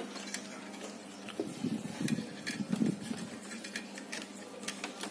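Light handling noise from a replacement deflection yoke and its wires being handled on a CRT television's picture-tube neck: scattered small clicks and rubbing, with a few soft knocks between about one and three seconds in.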